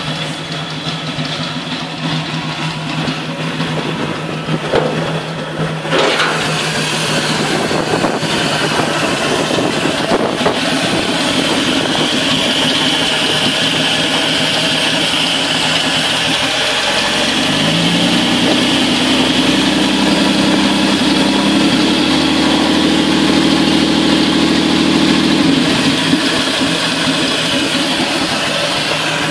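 1948 Nash six-cylinder engine running noisily with no exhaust fitted. A little past halfway it is revved up, held at a higher speed for about eight seconds, then drops back to idle.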